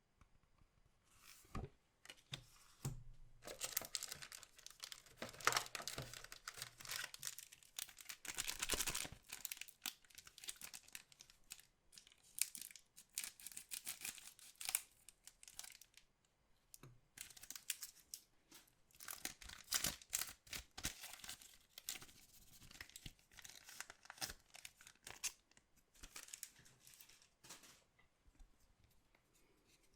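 Collectible card pack wrappers being torn open and crinkled by hand, in two long stretches of tearing and rustling with quieter handling in between.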